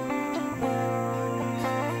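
Instrumental background music: a plucked guitar melody over steady low notes.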